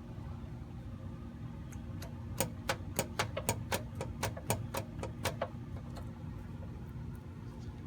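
Socket ratchet clicking about a dozen times, roughly four clicks a second, for about three seconds near the middle, as it turns over a Jeep 258 cubic-inch (4.2 L) inline-six by hand. A steady low hum runs underneath.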